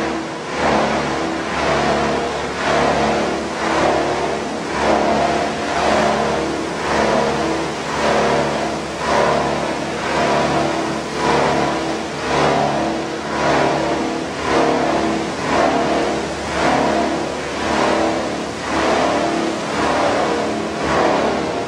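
PET bottle recycling and washing line machinery running: a loud, steady mechanical hum with several fixed tones, swelling and easing about once a second.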